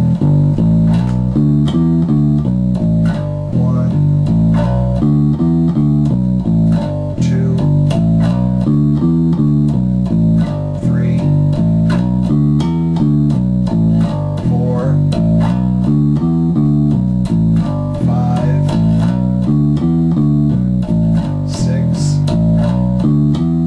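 Electric bass guitar playing an E minor pentatonic scale, note by note in an even rhythm, climbing and descending again and again without a break.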